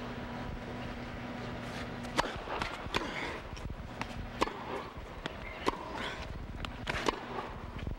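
Tennis rally: about five sharp racket-on-ball strikes roughly every second and a half, starting about two seconds in, with light shoe scuffs on the court between them over a low crowd murmur.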